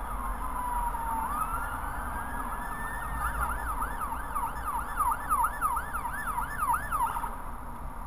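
Emergency vehicle siren sounding a slow wail, then switching about three seconds in to a fast yelp of about two sweeps a second, which cuts off about seven seconds in. A steady road rumble runs underneath.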